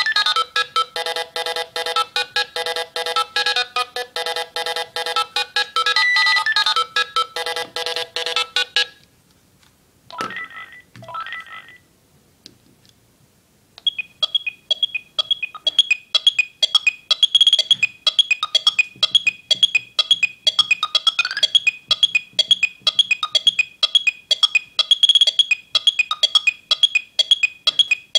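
Philips Fisio 625 mobile phone playing its built-in ringtones. A fast synthesized melody of rapid notes stops about nine seconds in, followed by a couple of short sounds and a brief pause. About fourteen seconds in a second ringtone starts: a quick, repeating pattern of high beeping notes.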